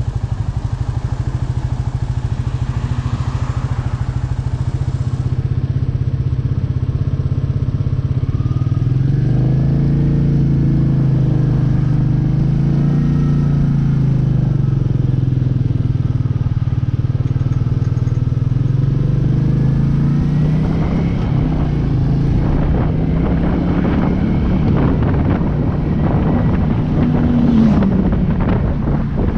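Royal Enfield Meteor 350's single-cylinder engine running under way, steady at first, then its pitch rising and falling several times through the middle as the bike speeds up and slows.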